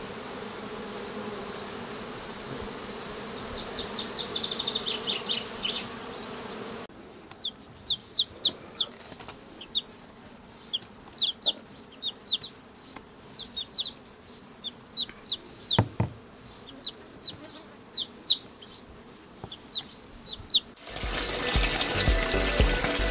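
Small birds chirping outdoors: short, sharp, high chirps repeated irregularly, one or two a second, over a low steady background. There is a single knock partway through, and near the end a louder steady rushing noise comes in.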